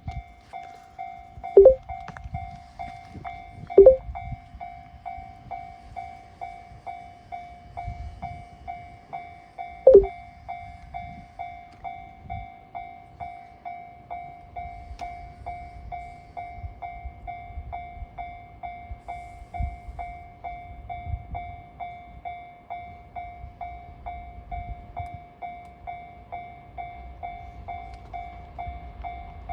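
Japanese level-crossing warning bell ringing steadily at about two strikes a second. Three short, loud horn blasts sound over it, two in the first four seconds and one about ten seconds in, and a low rumble from the approaching freight train, hauled by an EF210 electric locomotive, builds in the second half.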